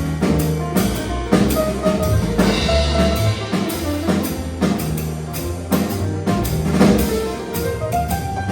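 Small jazz group playing a steady groove: drum kit, a bass line stepping from note to note, and melodic notes above.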